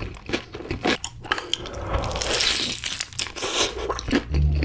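Close-miked chewing of crispy fried chicken: sharp crunches and clicks of the breading, thickest in the middle stretch.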